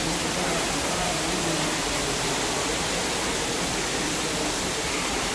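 Steady rushing of water jets and bubblers churning an indoor thermal pool, with faint indistinct voices in the first couple of seconds.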